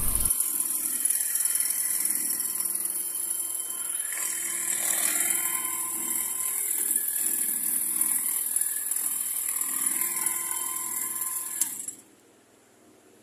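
Stihl cordless hedge trimmer running steadily as its reciprocating blades clip a boxwood shrub. The motor cuts off about 12 seconds in, and the rest is near silence.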